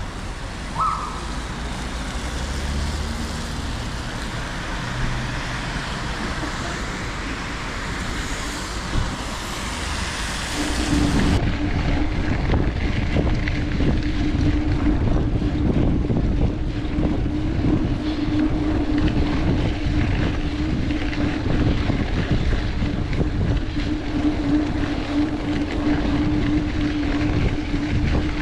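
Wind rushing over the microphone with riding noise. About ten seconds in, this gives way to a heavier low rumble under one steady hum that holds to the end.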